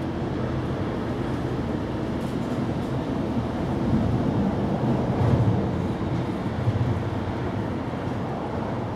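Low rumble of a passing vehicle, swelling to its loudest about four to six seconds in and then easing off.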